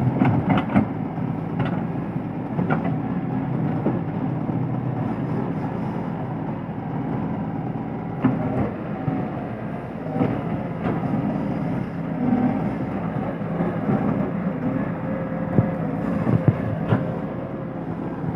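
Heavy earthmoving machinery with its diesel engine running steadily, and scattered knocks and clanks throughout.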